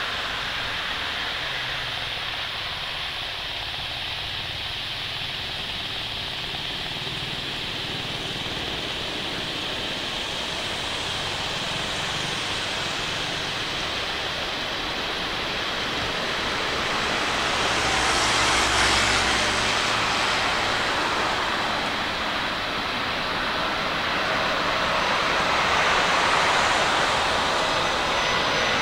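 Airbus A330-300 airliner on final approach with its Rolls-Royce Trent 700 turbofans at approach power: a continuous jet rumble and hiss that grows louder as the aircraft nears, swelling about two-thirds of the way in and again near the end.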